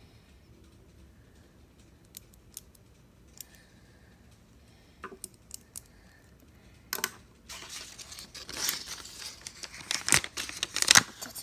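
A few faint taps and clicks, then, about two-thirds of the way in, loud rustling and crinkling of sheets of paper being handled and folded, growing denser toward the end.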